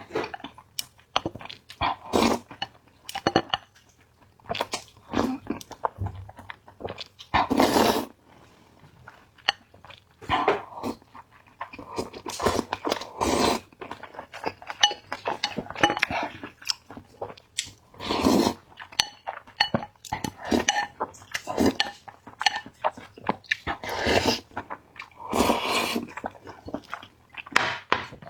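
Eating sounds: spicy noodles being chewed and slurped in irregular bursts, with wet mouth noises.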